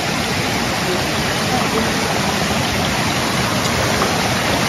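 Shallow mountain stream running over flat slate stones: a steady, even sound of flowing water.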